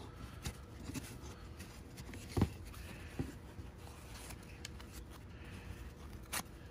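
Paper towel rubbing and rustling on a hard plastic part as it is wiped clean with solvent, with a few sharp clicks and taps from handling the piece; the loudest click comes about two and a half seconds in and another near the end.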